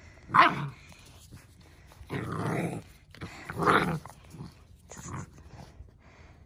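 Central Asian Shepherd puppies growling in play as they wrestle, in a few short growls, the sharpest about half a second in.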